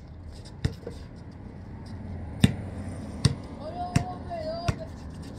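A basketball bouncing on a concrete driveway, about five sharp bounces at an uneven pace as it is dribbled. A voice calls out briefly in the second half.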